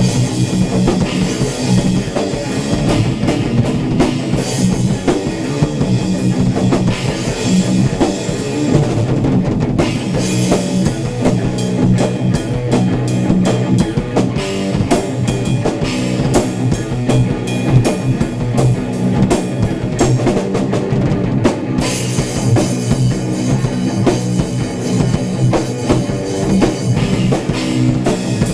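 Electric guitar and a drum kit playing rock live together. About ten seconds in, the cymbal wash drops away and the drums play sharper separate hits. The full cymbals come back after about twenty seconds.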